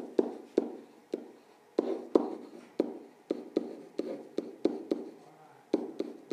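Stylus tapping and sliding on an iPad's glass screen during handwriting: a run of irregular sharp taps, about three a second, each with a short ring.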